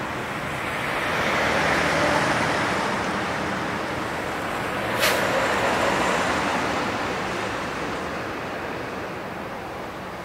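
Diesel locomotive engine running with a low hum as it approaches hauling a freight train, under a steady rush of road-traffic noise. A single sharp click about five seconds in.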